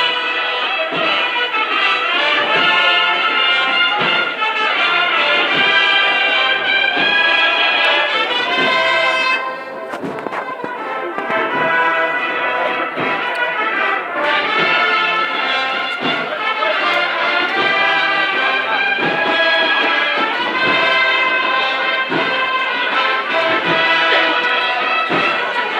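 Brass band playing a processional march, held brass notes over steady drum beats; it turns briefly quieter about ten seconds in and comes back in full a few seconds later.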